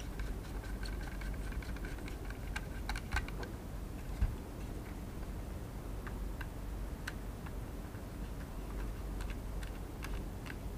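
Small screwdriver driving screws into the plastic casing of a DJI Mavic Air remote controller, with scattered light clicks and ticks of plastic handling, a quick cluster about three seconds in and a single soft knock about a second later.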